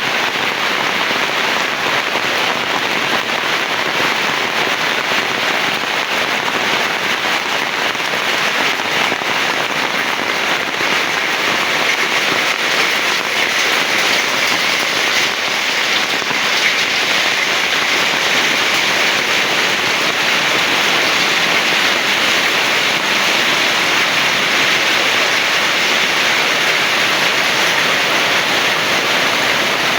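Heavy rain falling steadily, an even dense hiss with no thunder.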